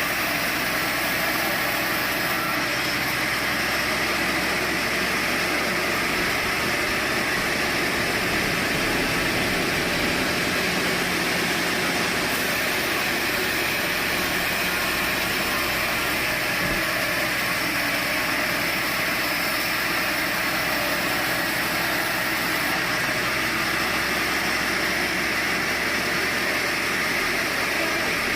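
Sawmill machinery running steadily, a continuous even mechanical noise without breaks.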